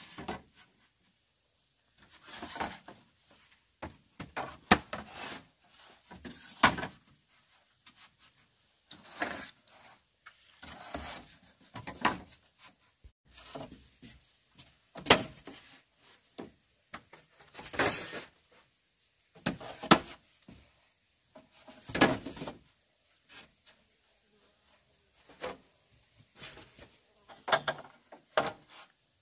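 Irregular knocks and scrapes of wood being handled and worked, a burst every second or two.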